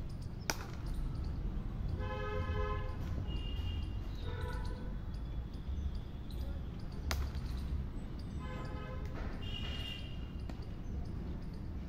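Wind rumbling on a phone microphone out on an open field, with two sharp knocks several seconds apart and three long distant shouts from players.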